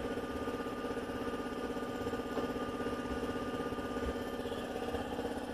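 A motor running steadily with a fast, even pulse.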